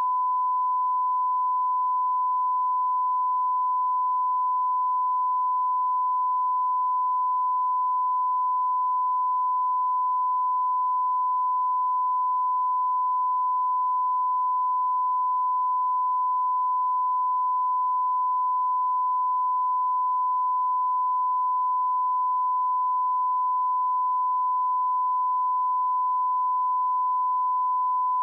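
A 1004 Hz sine-wave test tone, one pure steady pitch held without change.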